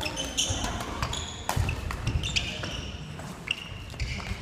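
Badminton rally: rackets knocking the shuttlecock, sneakers squeaking on the wooden court floor and feet thudding.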